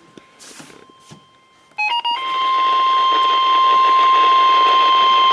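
NOAA Weather Radio alert: after faint static, a few short stepped beeps about two seconds in, then the steady 1050 Hz warning alarm tone, one loud continuous tone that announces a warning broadcast.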